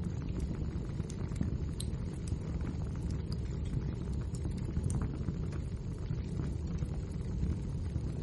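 Wood fire crackling: a steady low rumble of burning logs with irregular, sharp little pops and snaps, several a second.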